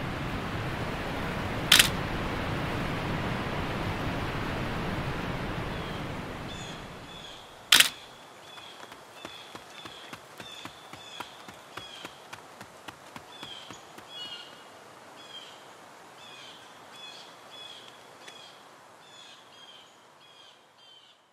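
Steady rush of river rapids, broken by two sharp camera shutter clicks about two and eight seconds in. After the second click the water drops away, leaving a bird calling in short repeated chirps that fade out near the end.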